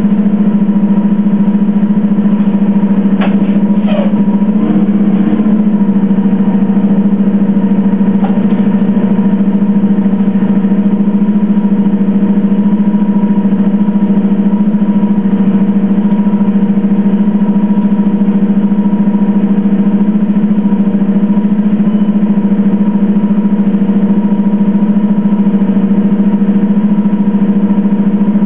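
Detroit Diesel Series 50G natural-gas engine of a 2003 Orion VII transit bus running steadily, a constant low hum with fainter higher tones above it. A couple of faint clicks come about three and four seconds in.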